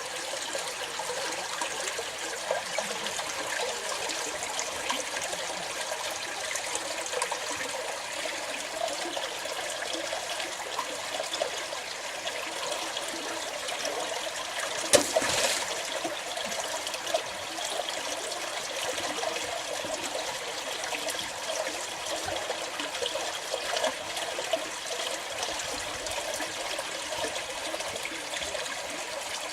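Water trickling and flowing steadily over stones in a small stream, with a single sharp click about halfway through.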